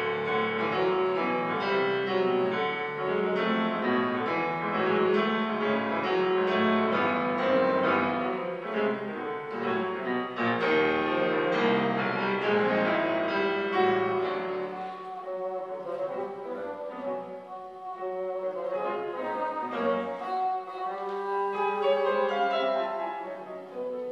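Bassoon and grand piano playing classical chamber music together, the bassoon carrying the melody over a busy piano part that thins out for a few seconds midway.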